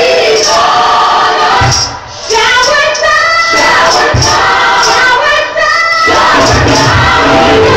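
Recorded gospel song with choir singing, played loudly in a church hall. It dips briefly about two seconds in, and a low bass line comes in near the end.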